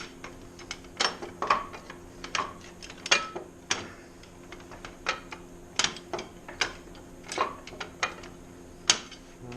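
Irregular metal clinks and knocks, some ringing briefly, as the steel stabilizer plate and pins between a Kubota BX23S tractor's lower three-point hitch arms are worked loose by hand.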